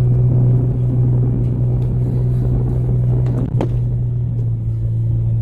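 Nissan Pathfinder driving at a steady speed on a snow-covered road: a steady engine drone over low road rumble, with a couple of short ticks about three and a half seconds in.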